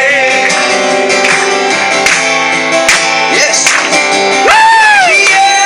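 Live song by a male singer with acoustic guitar. The guitar plays under the singing, and a long sung note swoops up and is held from about four and a half seconds in.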